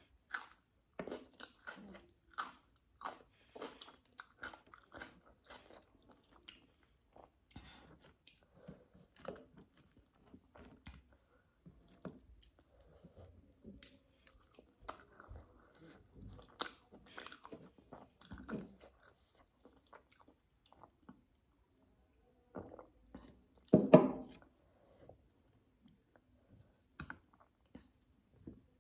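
Close-up eating sounds: crisp crunching bites of a raw onion ring and chewing of roti with spicy matar paneer, many short crunches and chews. One louder brief sound comes near the end.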